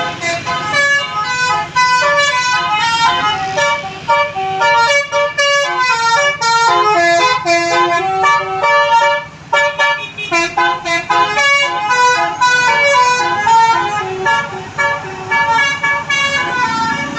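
Telolet musical air horn on a bus playing a fast melody of short, stepped notes, with a brief break about nine and a half seconds in.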